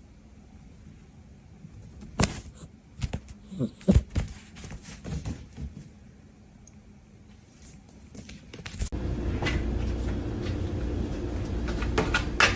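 A series of sharp knocks and bumps about two to five seconds in, then a steady low hum that starts suddenly near the end.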